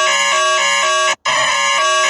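Electronic emergency alert alarm tone: a loud synthesized pattern of pitches alternating several times a second, repeating steadily, with a brief dropout about a second in.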